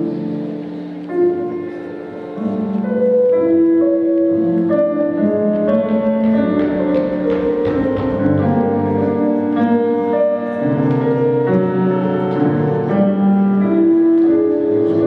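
Instrumental backing music: a melody of held notes moving step by step over sustained lower notes, playing steadily.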